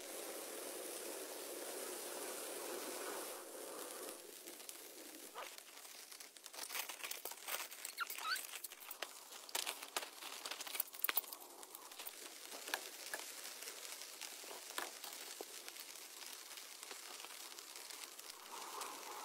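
Rain pattering on a nylon tarp shelter, then crinkling and rustling of the wet tarp fabric as it is handled, with many sharp crackles, thickest around the middle.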